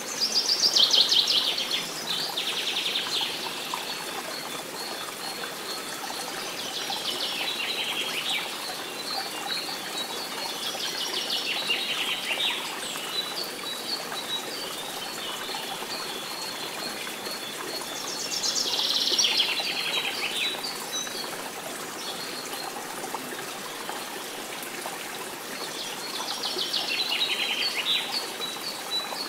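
Songbirds singing in repeated short phrases every few seconds over a steady running stream, with a thin high trill coming and going in the background.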